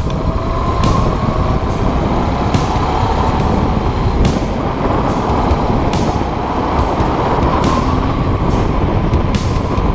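Motorcycle engine running while riding, with wind noise on the handlebar-mounted camera's microphone surging in short gusts every second or so.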